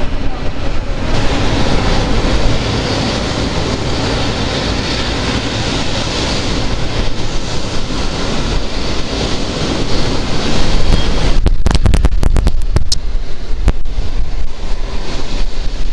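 Wind buffeting the microphone over a low rumble, with heavier gusts and a cluster of sharp crackles about two-thirds of the way through.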